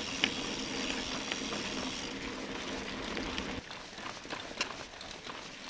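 Mountain bike rolling along a dirt track: steady tyre and wind noise with scattered clicks and rattles from bumps, a little quieter after about three and a half seconds.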